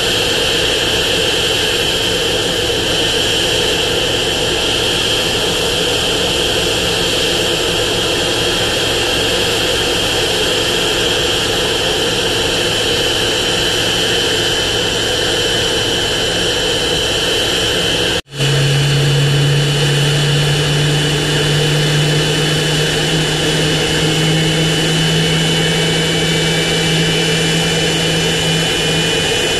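Boeing 777-200ER's GE90 turbofan engines running steadily during a ground run-up: loud jet noise with a high steady whine. After a short break about two-thirds of the way through, the noise goes on with a low hum underneath and a second whine slowly rising in pitch near the end.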